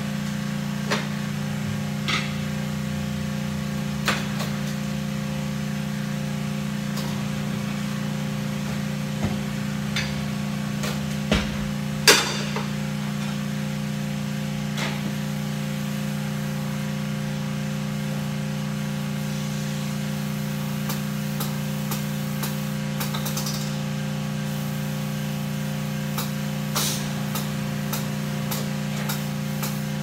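Scattered metal knocks and clicks as a large off-road tire is worked on a tire-changing machine, the loudest knock about twelve seconds in and a run of quick ticks in the last third, over a steady low hum.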